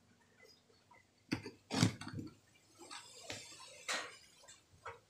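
A few short clicks and knocks from handling the RCA plugs and touching the wire tracker's probe to the connector pins, with faint rustling between them.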